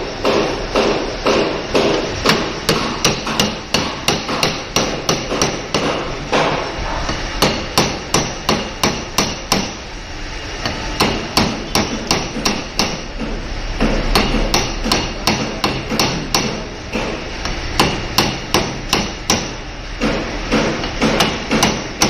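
Repeated hammer blows in a steady rhythm of about three a second, with a couple of brief lulls.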